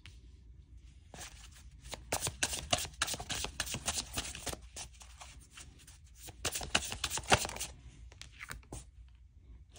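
Tarot cards being shuffled and handled: a dense run of quick card clicks and flicks, busiest from about two to four seconds in and again around seven seconds in.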